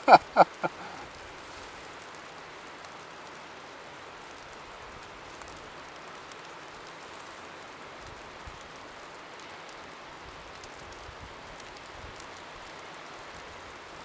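Steady, even hiss of a snowstorm outdoors, wind and falling snow, with a few words of speech in the first second. No shot is fired.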